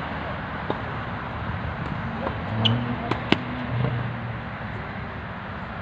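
Tennis balls struck by rackets during a rally: a few sharp pops, the loudest about three seconds in, over a steady background hum.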